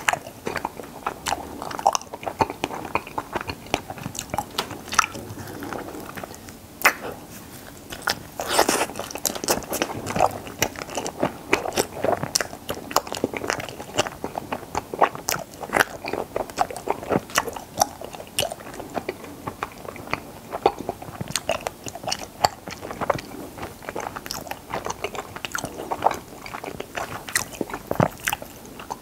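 Close-up chewing and biting of strawberry chaltteok ice, mochi rice cake wrapped around ice cream: a continuous run of irregular sharp mouth clicks and crunches, several a second.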